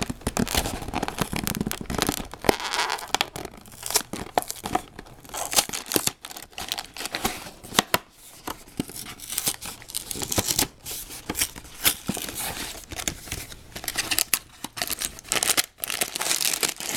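A LEGO set's cardboard box being torn open by hand, with irregular tearing, crackling and rustling of the packaging.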